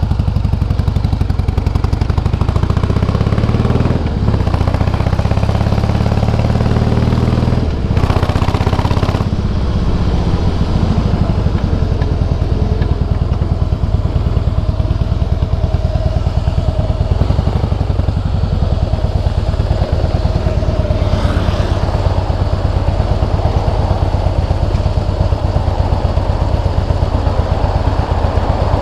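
Harley-Davidson Softail Heritage V-twin with Screamin' Eagle exhausts running, its engine note shifting in pitch a few times in the first several seconds and then running steadily. The owner complains of a metallic noise and an iron-like vibration from the primary drive that comes only when slowing down and downshifting.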